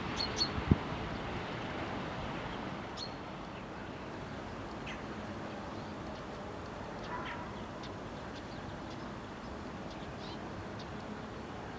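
Birds calling with short, scattered chirps and one brief rising call about seven seconds in, over a steady outdoor background noise. Two low thumps sound within the first second.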